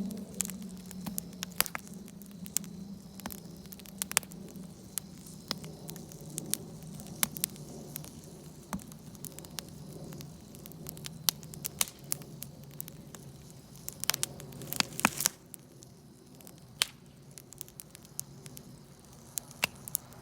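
Wood campfire crackling, with irregular sharp pops and a quick flurry of them about fourteen to fifteen seconds in. A low steady hum runs underneath and drops away shortly after the flurry.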